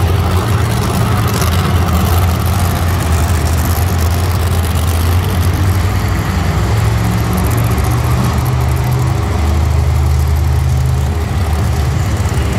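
Monster truck engines running with a deep, steady rumble, the pitch shifting a little up and down.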